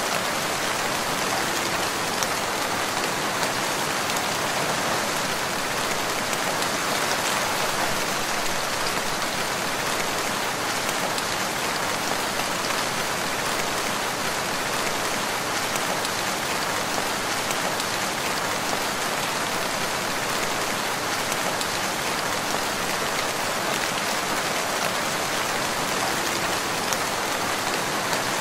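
Steady, dense rainfall pattering on surfaces, an even hiss of many drops without let-up.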